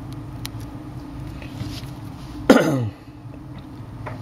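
A man clears his throat once, a short loud sound falling in pitch about two and a half seconds in, over a steady low hum.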